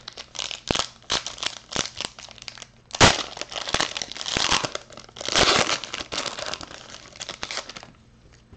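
Shiny foil wrapper of a Panini Prizm basketball card pack crinkling and tearing as it is pulled open by hand: a run of sharp crackles, with louder rips about three seconds in and again past five seconds.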